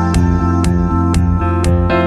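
Instrumental background music: sustained keyboard chords over a steady beat of about two strokes a second.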